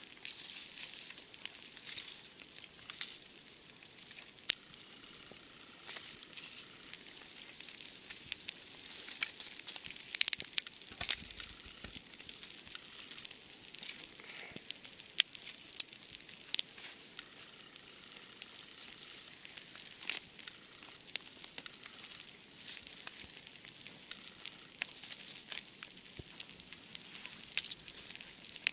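Small campfire of dry twig kindling and a grass-and-birch-bark tinder bundle crackling, with irregular sharp pops throughout and the loudest cluster about ten seconds in. Dry sticks and leaves rustle as the kindling is handled.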